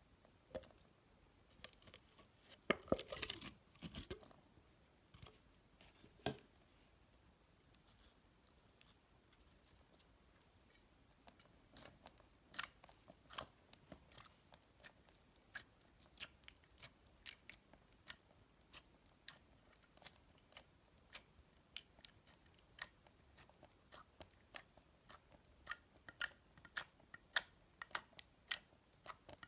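Store-bought floam slime being squeezed and pressed, its foam beads crackling and popping in sharp clicks: a short burst of crackles about three seconds in, then a steady run of clicks at roughly two a second through the second half.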